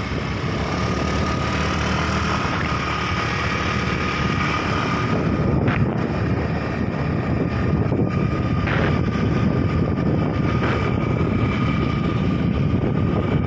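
Motorbike running steadily while riding along a road, with wind rushing over the phone's microphone.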